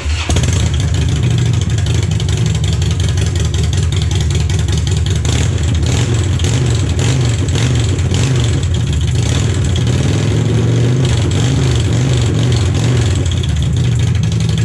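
Harley-Davidson Dyna's V-twin engine running with its slip-on mufflers removed, so the exhaust comes straight out of the open header pipes. Loud and steady.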